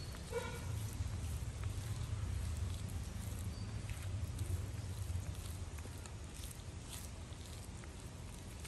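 A hand squishing and rubbing a wet spice paste on a banana leaf, with soft scattered squelches and leaf crinkles over a low steady rumble.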